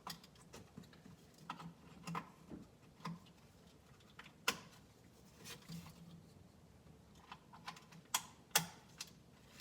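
Irregular light clicks and taps of small hard plastic parts being handled, as the master window switch and its connector are reconnected. Two sharper clicks stand out, about four and a half and eight and a half seconds in.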